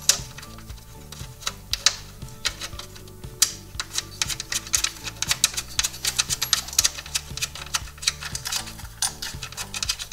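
Socket ratchet clicking in quick, irregular runs as bolts are tightened, over background music with a steady low bass line.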